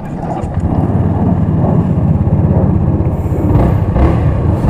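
Honda Rebel 250's single-cylinder 250 cc engine running at idle, its rapid firing pulses even and steady; it grows louder over the first second.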